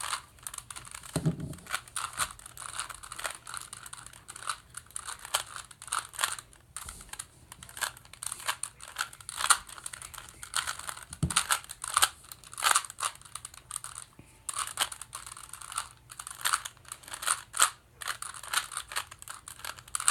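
Plastic 3x3 Rubik's cube being turned by hand: a rapid, irregular run of clicks and clacks as the layers are twisted.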